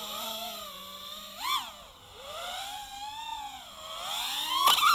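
An FPV quadcopter's motors and propellers whining, the pitch rising and falling with the throttle, as the crashed quad spins up and lifts off the dirt. There is a sharp burst just after a second, and the loudest, highest pass comes near the end.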